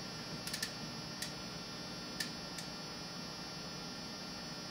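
Steady electrical mains hum and buzz, with a few faint clicks in the first three seconds.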